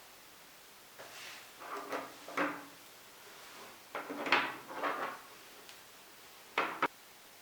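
Household handling noises: a series of short scrapes and knocks, like a drawer or cupboard being worked, ending with two sharp knocks close together.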